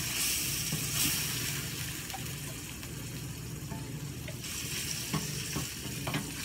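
Pounded herb paste of lemongrass, galangal and lime leaf sizzling in hot oil in a stainless steel pan while a wooden spatula stirs it. Near the end come a few light knocks of the spatula against the pan.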